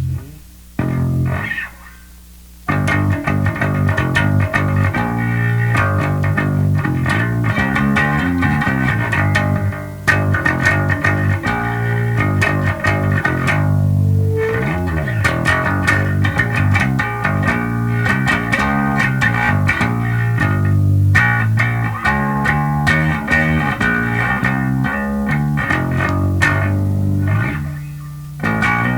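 Electric bass (Squier Mini P Bass with DiMarzio Relentless pickups) played through a Sound City Master Lead 50 valve amp, running through riffs. There are a couple of short stops in the first few seconds, and a sliding note about halfway through.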